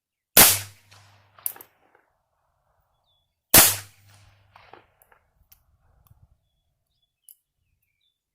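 Two gunshots from a Bond Arms Roughneck derringer fitted with a 2.5-inch .22 LR barrel, about three seconds apart, with a sharp click between them and a few lighter metallic clicks afterwards.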